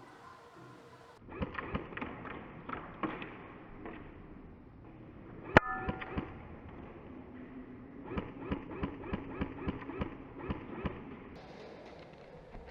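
Airsoft guns firing single shots with sharp snaps, scattered at first and then in an even run of about nine shots at roughly three a second. About five and a half seconds in there is one loudest crack with a short ring.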